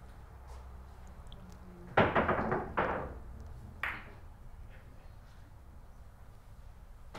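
Boccette billiard balls clacking: a hand-thrown ball smashes into a cluster of balls about two seconds in, setting off a quick run of clicks, with one more sharp clack nearly two seconds later.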